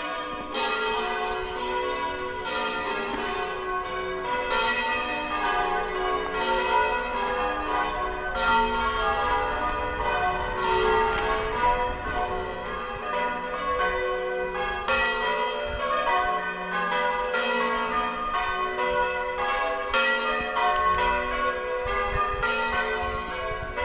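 Church tower bells ringing in English change ringing: a continuous run of overlapping bell strikes as the ringers practise.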